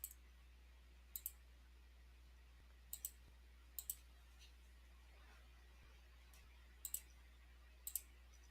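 Computer mouse clicking six times, each click a quick double tick of press and release, spaced irregularly a second or more apart over a quiet room.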